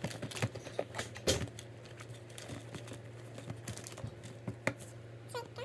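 Scattered light clicks and taps of squishy toys being picked through and handled from a pile, over a steady low hum.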